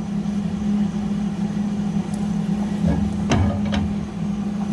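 A steady machine hum, with a few sharp metal knocks a little past halfway as a wrench turns a jack bolt against a tack-welded pulling plate.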